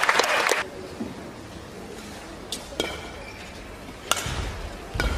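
Badminton rally in an indoor arena: sharp racket strikes on the shuttlecock a second or so apart, with short shoe squeaks on the court floor and a steady crowd murmur. A loud burst of crowd noise at the start cuts off after about half a second.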